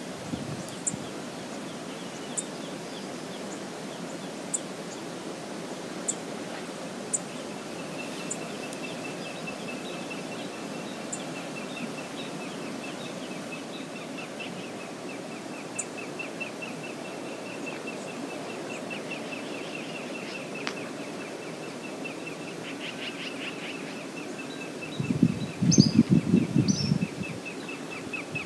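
Steady rushing of a fast river, with short high bird chirps scattered through and a fast high ticking from about a quarter of the way in. About 25 seconds in, a few seconds of loud low rumbling buffets, the loudest sound here.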